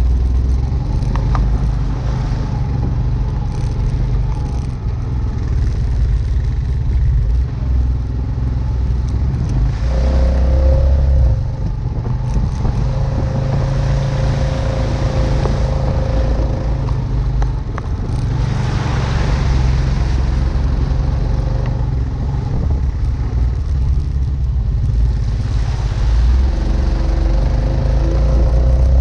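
Honda Foreman ATV's single-cylinder four-stroke engine running as the quad is ridden, engine speed rising and falling, with stretches of hiss about halfway through.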